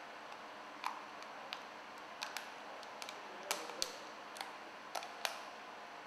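Light, irregular clicks and taps of a clear plastic cable-splice mold being handled and fitted over a cable joint, about ten in all, over a faint steady hiss.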